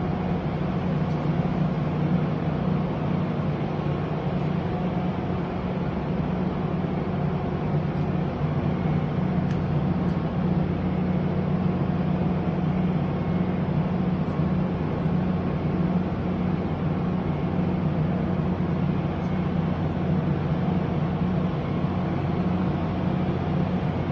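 Pomini CNC roll grinder running: a steady industrial machine hum with strong low tones.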